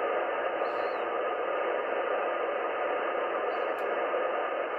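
Amateur radio receiver tuned to the 80-metre band giving out a steady hiss of static through its speaker, cut off above the narrow voice passband. It is wideband noise blanketing the whole band, from a source the operator cannot place.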